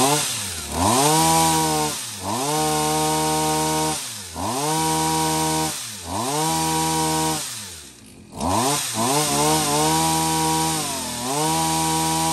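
Shindaiwa S231 pole pruner's 23cc two-stroke engine revved six times in a row, each throttle blip held at high speed for a second or two and dropping back toward idle between, the saw chain spinning on the bar.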